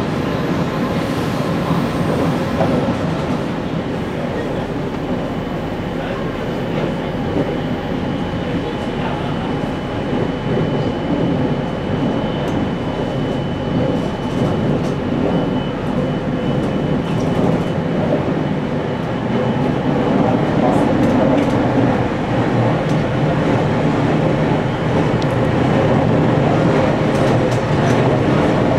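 JR Kyushu 817 series 3000-subseries electric train running between stations, heard inside the passenger car: a steady rumble of wheels on rail with faint steady tones over it, growing somewhat louder about twenty seconds in.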